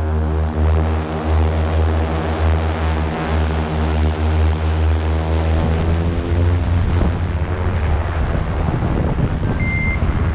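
Drone motors and propellers running close to the camera, a steady hum with several pitches. About six seconds in the pitches shift and the sound turns rougher, and a short high beep sounds near the end.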